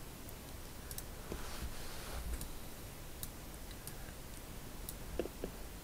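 Faint computer mouse clicks, a few sharp ticks scattered over several seconds.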